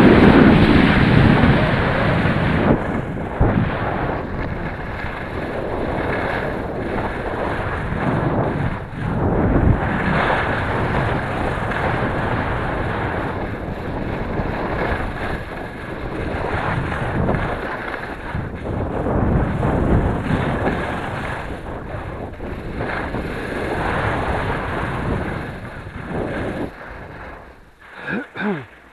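Wind rushing over a helmet-mounted camera's microphone during a fast downhill ski run, with the hiss of skis on the snow, rising and falling with the turns. It dies away near the end as the skier slows to a stop.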